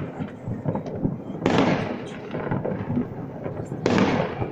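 Fireworks shells bursting: two big booms, about a second and a half and about four seconds in, each with a rolling echo that dies away, among smaller crackling pops.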